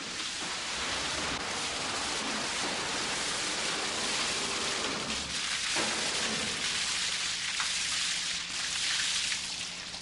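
Water splashing and running in the warm-water bath of a block-ice factory, where the filled ice moulds are dipped to loosen the frozen blocks; a steady, rain-like hiss.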